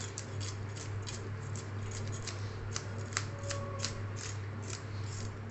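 A hand fish scaler scraping the scales off a raw hilsa in quick, short strokes, about three a second, over a steady low hum.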